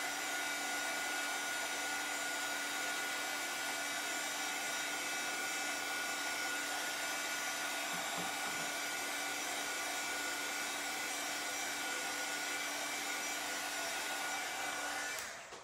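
Handheld craft heat gun running steadily, blowing hot air over a decoupaged shell to dry the Mod Podge; an even whir and hiss with a steady tone in it, cutting out near the end.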